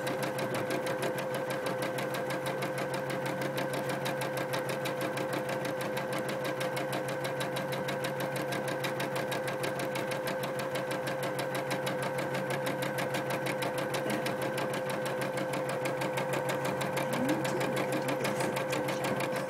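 Computerized embroidery machine stitching, its needle running at a fast, even rhythm over a steady motor hum.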